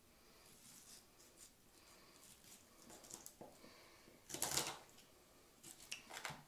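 Kitchen knife cutting through raw carp on a wooden cutting board: a few faint scraping cuts, the loudest about four and a half seconds in, then a short cluster of cuts near the end.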